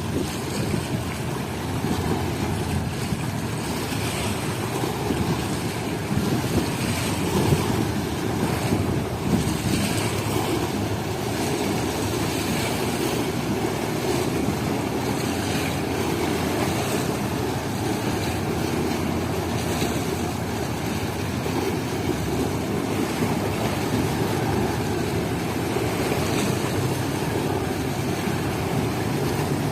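Harbour water with waves splashing and slapping every few seconds over a steady low rumble, with wind buffeting the microphone.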